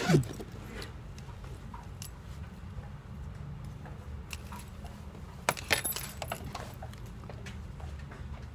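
Light metallic jangling and clinking as things are handled at a trouser pocket, mostly in a cluster about five and a half to six and a half seconds in, over a steady low hum. A short falling squeak comes right at the start.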